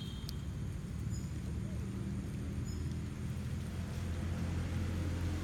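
Low, steady drone of a motor vehicle's engine running, growing louder about four seconds in, with a few faint high chirps above it.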